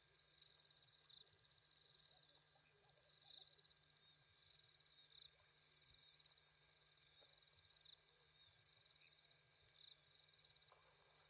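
Faint, steady high-pitched chirring of night insects, a rapid pulsing trill that runs on without a break.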